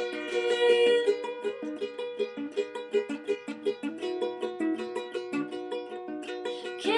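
Plucked string instrument playing a song's accompaniment on its own: a steady run of individually picked notes, without singing.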